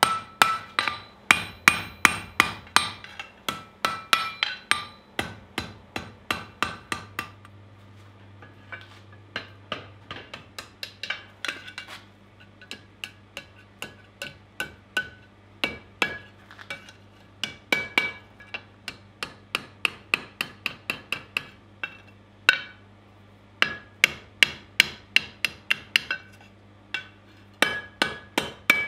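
Blacksmith's hand hammer striking hot angle iron on an anvil in quick runs of ringing blows, several a second. The blows are heavy at first, turn lighter about a quarter of the way in as a thin piece is worked over the anvil horn, and grow louder again near the end.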